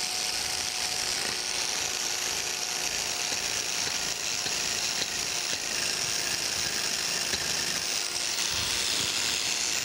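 Biax electric power scraper running steadily, its reciprocating blade scraping along the cast-iron dovetail of a planer cross slide in step-scraping passes to take down the high end.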